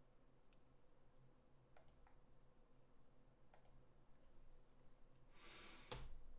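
Near silence with a few faint computer mouse clicks, then near the end a short breath out close to the microphone, ending in a sharper click.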